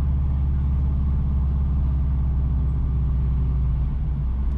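A car driving along a road: its engine and tyres make a steady low rumble and hum.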